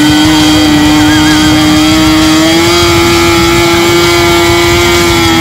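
Small combustion engine of a radio-controlled model plane running steadily while the plane is held on the ground, its pitch rising a little about halfway through.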